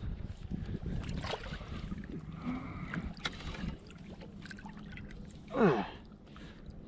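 Low rumble with scattered small knocks and clicks aboard a bass boat; the rumble eases about four seconds in. About five and a half seconds in, a short human exclamation falls in pitch.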